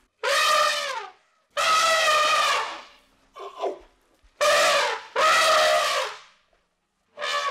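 Elephant trumpeting: a run of loud trumpet calls in quick succession, each lasting up to about a second, with a shorter call between them and another starting near the end.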